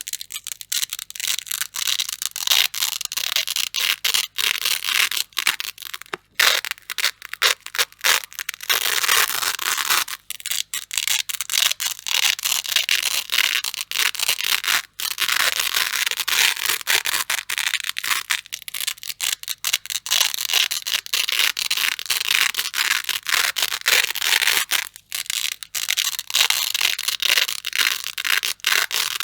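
Grey hook-and-loop (Velcro) fastener being pulled apart and worked, giving a dense, crunchy crackling rip that runs almost continuously with a few short breaks.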